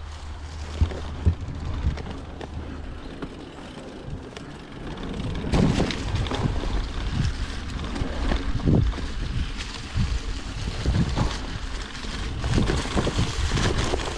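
Mountain bike riding along a dirt trail covered in dry leaves: tyres rolling over the leaves and the bike rattling, with wind buffeting the microphone. The noise gets louder and gustier about five seconds in.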